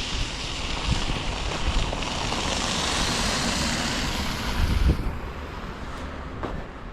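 A vehicle passing on a slushy, wet road, its tyre hiss swelling to a peak and then dropping away about five seconds in. Wind buffets the microphone with low rumbles throughout.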